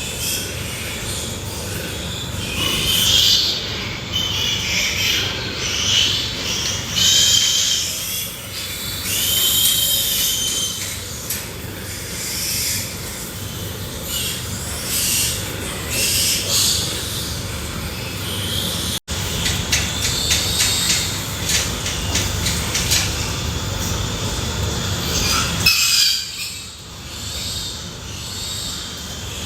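Pigs squealing again and again over a constant noisy din. The squeals come as high, wavering cries, and the sound cuts out for an instant about two-thirds of the way through.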